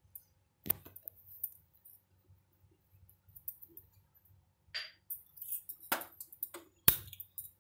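A few scattered clinks and knocks of kitchen utensils being handled at the stove. The loudest is a sharp knock near the end.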